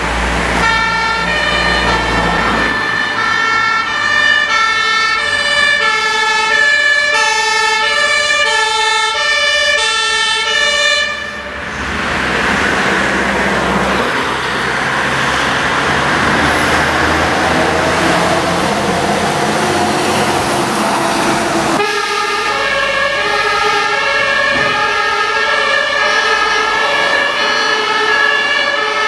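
German fire engine two-tone siren (Martinshorn) sounding its alternating high-low tones, as a Mercedes-Benz fire truck on an emergency run approaches. For about ten seconds in the middle, the siren is covered by a loud rushing noise as the truck passes close by. The two tones are heard clearly again near the end as it drives away.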